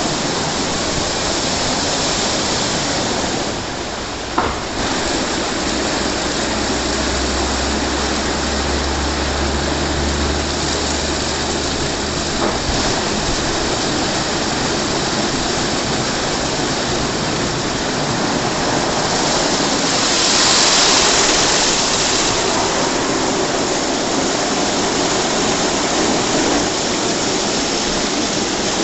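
WashTec SoftCare 2 Pro rollover car wash running: water spraying and spinning cloth brushes scrubbing a car make a steady rushing wash. A single knock sounds about four seconds in, a low hum runs for several seconds near the middle, and the spray grows louder for a couple of seconds about two-thirds through.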